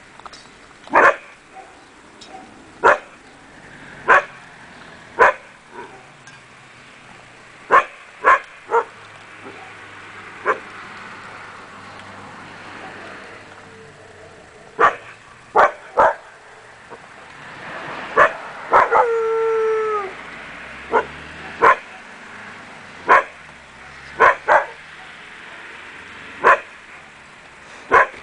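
Akita Inu barking in short, sharp single barks, often in twos or threes every second or two, with one longer drawn-out yelp that falls slightly in pitch about two-thirds of the way through.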